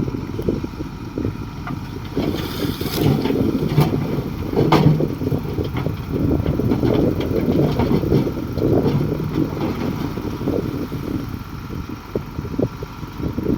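Komatsu D58 crawler bulldozer's diesel engine running as it works, its rumble rising and falling with the load. Several sharp metallic clanks sound a few seconds in.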